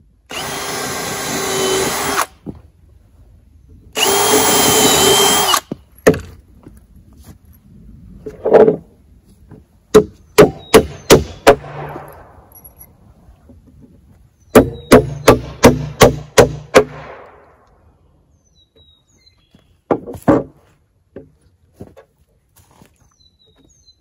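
Cordless drill driving two screws into a pine board, each a steady whir of about two seconds, the second rising in pitch near its end. Then a claw hammer strikes the wood in two quick runs of about six and eight blows, roughly three a second, followed by a couple of single knocks.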